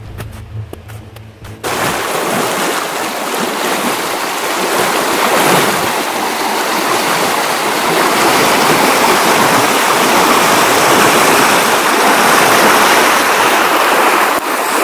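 Water rushing and splashing over rocks in a stone-lined reservoir outflow channel swollen with snowmelt: a loud, steady rush that cuts in suddenly about two seconds in. Before it comes a short stretch of low hum with a few faint clicks.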